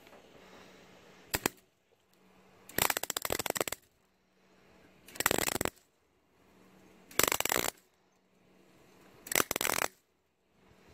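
Wire-feed (MIG) welder arc crackling in short bursts, five in all and about two seconds apart, as the Y joint of a steel exhaust pipe is fully welded bead by bead over its earlier tack welds.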